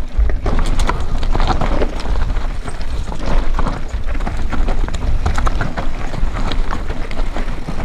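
Mountain bike descending a loose, stony trail: tyres crunching over rocks and the bike clattering over bumps, in many short knocks over a steady rumble, with wind buffeting the microphone.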